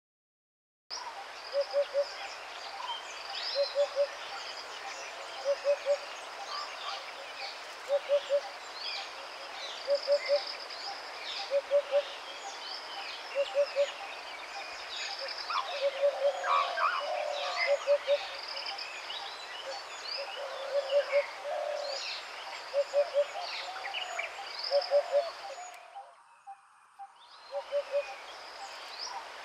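Forest bird chorus: many birds chirping high and thick, and through it a low call of three quick notes repeating about every two seconds. The whole chorus drops out briefly near the end.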